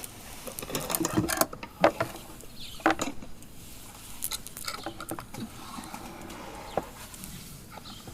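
Small objects being handled: a few sharp clicks and knocks in the first three seconds, then softer scattered taps and rustling, as when a small box is brought out and opened.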